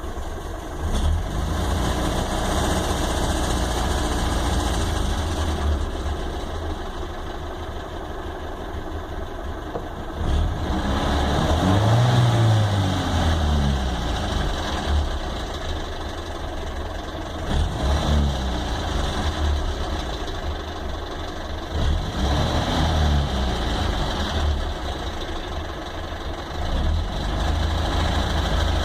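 GAZ-21 Volga's four-cylinder engine heard from inside the cabin, idling with a knock in the engine. It is revved up and back down once for a few seconds near the middle, then blipped briefly twice more.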